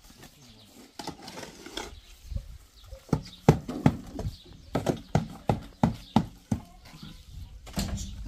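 A shovel mixing cement mortar in a metal wheelbarrow: a run of sharp scrapes and knocks of the blade against the pan, about two a second, starting about a second in and stopping near the end.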